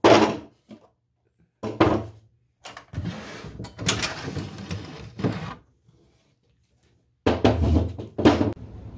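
Wooden drawer being slid out of a vintage wooden bench: a longer scraping slide in the middle, with several short knocks of wood on wood before and after it.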